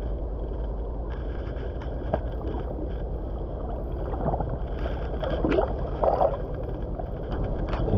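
Fast-flowing river water rushing steadily, with splashing and gurgling in the water between about four and six and a half seconds in.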